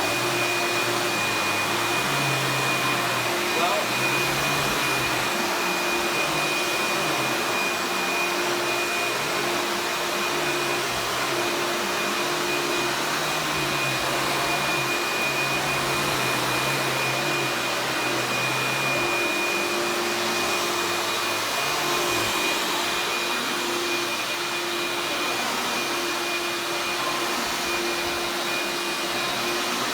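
Eureka Boss Plus upright vacuum cleaner with a 12 amp motor running steadily, with a constant high whine and a lower hum that shifts in pitch every second or two.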